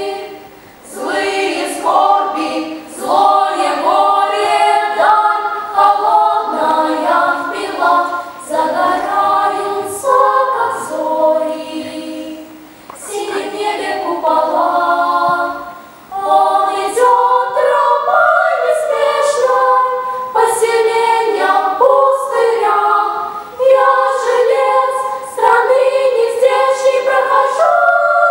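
A children's girls' choir singing, in phrases broken by short breaths.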